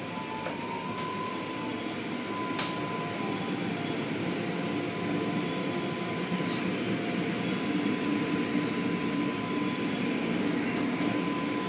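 Automatic car wash running around the car, heard from inside the cabin: a steady rush of water spray and brushes against the body with a thin steady whine. A click comes about two and a half seconds in and a louder knock about six seconds in.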